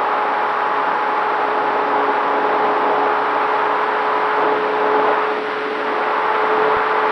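Electric motor and propeller of a Dynam T-28 Trojan RC plane in flight, heard from its onboard camera: a steady hum with a rushing of air, easing briefly about five and a half seconds in.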